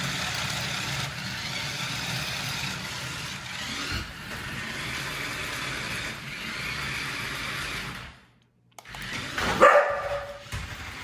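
Small electric motors of a toy remote-control car whirring, with the wheels running over a desk and the pitch shifting as it drives. The noise cuts out for a moment, then a short, loud pitched cry, like a yelp or bark, stands out near the end.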